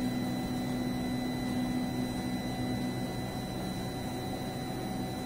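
Z-axis stepper motor of a DIY Arduino CNC machine running a homing move, lowering the bit slowly toward a copper PCB probe plate until the bit touches it. It makes a steady hum with a few held tones, the lowest of them fading about three seconds in.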